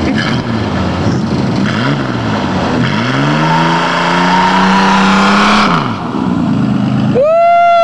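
Hot-rod pickup's engine blipped through its open exhaust, then revved up and held at high revs for a couple of seconds before dropping back. Near the end a loud steady high-pitched tone like a horn sounds over it.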